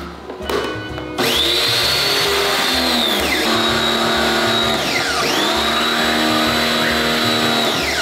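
Electric pump motor of a portable pressure washer spinning up with a rising whine about a second in, winding down a couple of seconds later, then starting again and running until it winds down near the end, as it sprays through a wand held under water in the machine's own tank. Background music with a steady beat.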